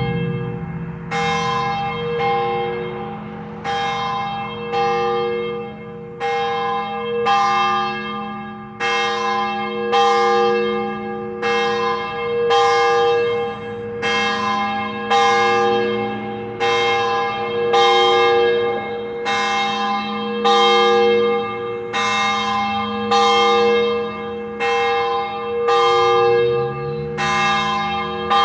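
A single church bell rung over and over, roughly one stroke every second and a bit. Each strike rings on, with a steady low hum carrying under the next stroke.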